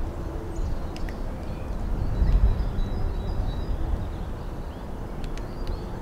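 Outdoor ambience of a low, gusting wind rumble on the microphone, loudest a couple of seconds in, with small birds chirping and one thin whistled note in the background.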